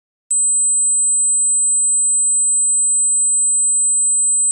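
A single electronically generated dog-whistle tone: one steady, very high-pitched pure tone that switches on abruptly about a third of a second in and holds without change.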